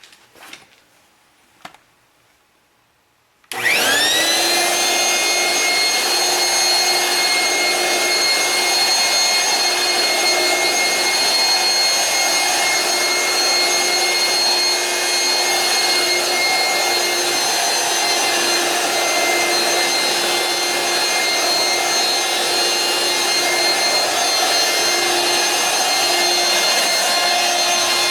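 Dirt Devil Power Stick stick vacuum switched on after a few faint clicks, its motor whine rising quickly to a steady high pitch and then running steadily.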